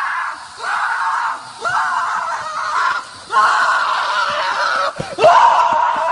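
A series of about five loud, drawn-out screaming cries, each lasting roughly a second, with the last one the loudest.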